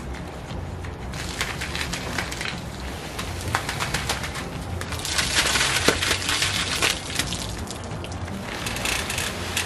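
Plastic tarp and canopy fabric rustling and crackling as they are handled, with a louder stretch of rustling about five to seven seconds in.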